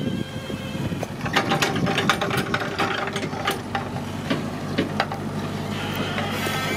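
Rapid metallic clicking and clattering for about four seconds, starting about a second in, over a machine engine's steady hum, which comes through more clearly once the clatter dies away.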